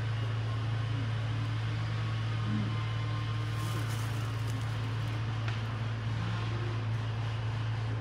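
Engine of heavy tree-clearing equipment running steadily: an even low hum at a constant level.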